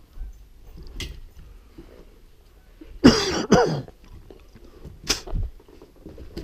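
A man coughs and hawks to clear his throat loudly in two quick bursts about three seconds in. A short sharp burst follows about two seconds later.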